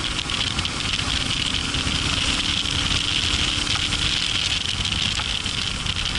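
Yamaha Ténéré 700's parallel-twin engine running at a steady pace while riding a gravel track, under a steady rush of wind and road noise.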